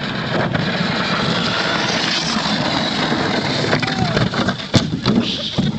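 A towed bathtub sled scraping over ice and crashing through dry grass and brush on the bank, a dense, noisy scrape with a sharp knock about five seconds in.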